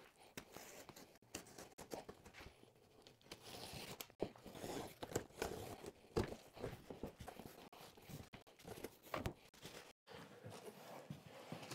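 Cardboard shipping box being opened by hand: tearing, scraping and rustling of the flaps and packing, with scattered light knocks and crinkling of plastic wrap.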